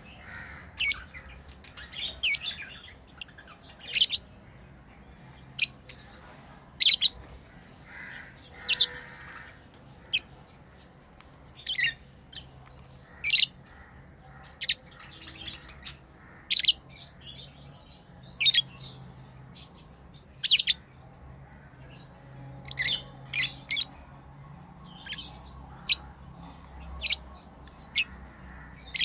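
Pet lovebirds chirping: short, sharp, high-pitched calls about once a second, some in quick pairs.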